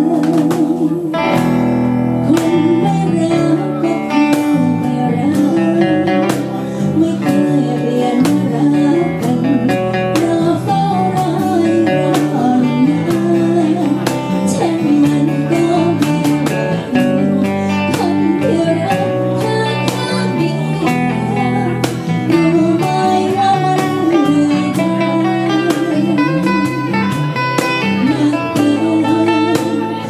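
Live acoustic band: a woman singing with vibrato over strummed and picked acoustic guitars and a cajón keeping the beat.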